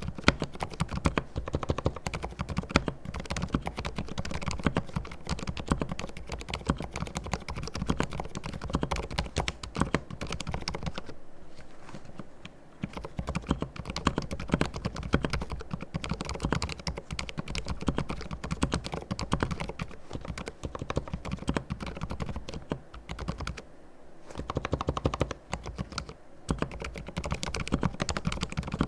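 Typing on a mechanical keyboard with fully lubricated silent red (low-noise linear) switches: fast, continuous keystrokes that pause briefly about eleven seconds in and again near twenty-four seconds.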